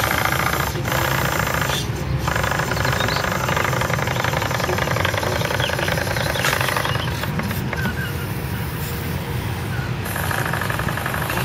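Model steam launch's Monahan steam engine running steadily, a fast even chuffing with hissing exhaust steam.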